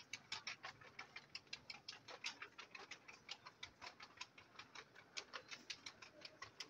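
Faint, rapid ticking: short sharp clicks, about five or six a second, fairly regular.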